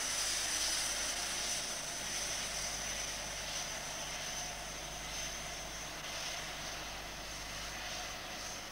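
British Rail InterCity 125 (HST) running away across a viaduct: the diesel power cars and the train make a steady noise that fades gradually as it recedes.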